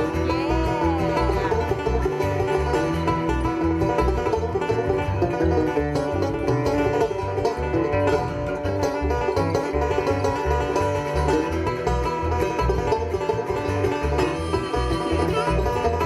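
Bluegrass trio playing live: banjo picking over acoustic guitar and upright bass, with the bass plucking a steady beat.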